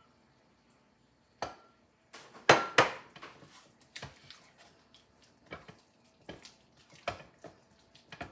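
A wooden spoon stirring cream into mashed potatoes in a small crock-pot crock, knocking and scraping against the crock about once a second. Two sharp knocks about two and a half seconds in are the loudest.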